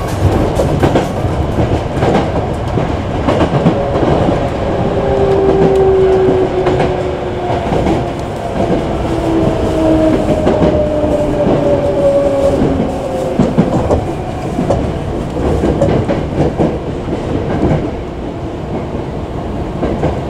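Hankyu Kyoto Line electric train running: steady rumble of the wheels on the rails with clickety-clack rail-joint clicks. Through the middle comes a motor whine in two tones that glides slowly down in pitch.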